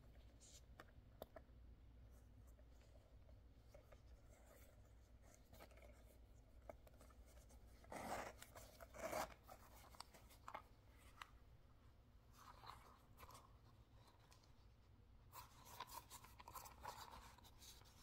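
Faint handling of a small round leather coin pouch: light clicks and rubbing, with louder rustling about 8 to 9 seconds in. Near the end its metal zipper is run open with a faint ticking rasp.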